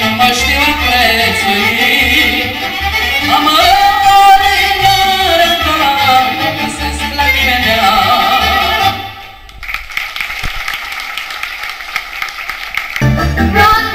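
Romanian folk-style band music with an ornamented, wavering melody line over a steady bass beat. About two thirds of the way through the bass drops out for a few seconds, leaving only the higher parts, then comes back in near the end.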